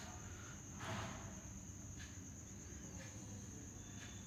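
A faint steady high-pitched whine, with a few soft brushing sounds about one, two and three seconds in.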